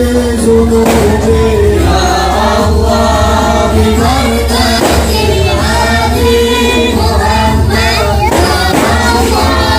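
A chorus of voices singing a devotional Maulid song together with music, played loud over the event's loudspeakers, with long held notes.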